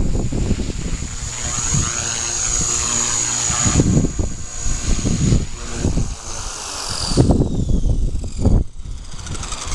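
Strong gusty wind buffeting the microphone in uneven rumbling surges, with a high thin whine that slides down in pitch about seven seconds in.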